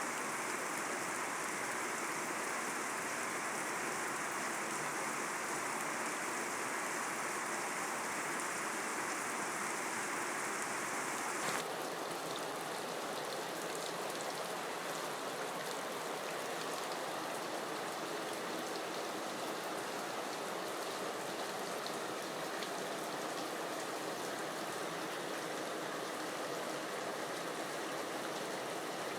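Steady rain falling, an even hiss. About eleven seconds in, its tone changes suddenly and it becomes a flatter, slightly quieter hiss.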